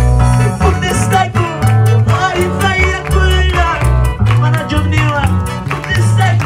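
Live band playing an upbeat worship song: a guitar melody over heavy, shifting bass notes and a steady beat.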